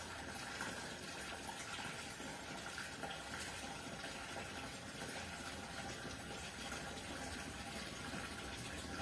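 Water pouring steadily through small holes punched in a cut plastic bottle and splashing onto a cotton cloth as a newly planted aquarium is slowly filled. The cloth keeps the stream from stirring up the substrate.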